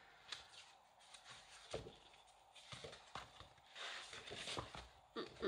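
Faint handling noises from sorting through sheets of craft paper: a few light taps and knocks, and a short paper rustle about four seconds in.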